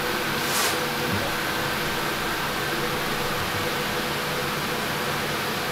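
Kitchen ventilation fan running: a steady hiss with a faint, even hum, and a brief soft hiss about half a second in.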